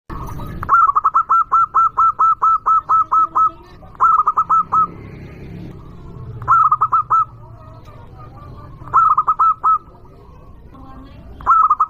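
Zebra dove (perkutut) cooing. First comes a fast run of about a dozen hooked coo notes, then four shorter bursts of a few notes each, spaced roughly two and a half seconds apart.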